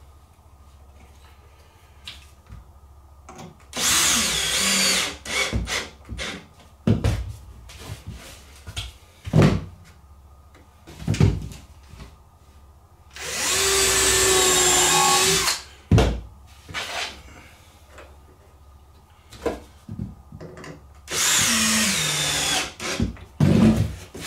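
A handheld power tool running in three short bursts of one to two and a half seconds each. Sharp knocks and clatter of workpiece handling fall between the bursts.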